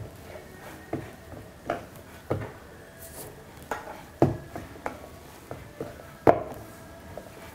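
Hands pressing and kneading a ball of stiff shankarpali dough on a round wooden rolling board, with irregular dull knocks, about seven in all, the loudest near the end.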